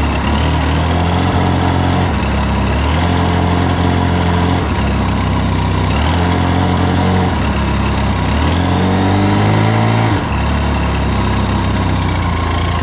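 Benelli TRK 502X's 500 cc parallel-twin engine running at idle, its note wavering slightly, with a brief rise in revs about nine seconds in. It is run for only a few seconds on a part fill of fresh oil, just under 2 litres, to push oil round the engine and into the new oil filter.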